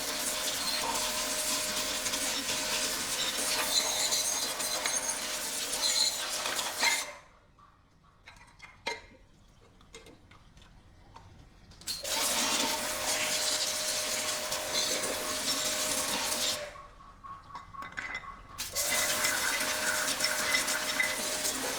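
A power tool running with a steady hissing, scraping noise. It stops abruptly about seven seconds in and starts again some five seconds later, then pauses once more for about two seconds near the end.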